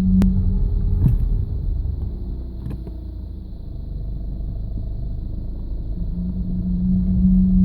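Low-pitched groaning hum from the front of a 2009 Audi A3 2.0 TDI, over a low rumble. It stops about half a second in and comes back about six seconds in. It is the owner's unresolved fault, which appears under drive near full steering lock and stops when the clutch is pressed.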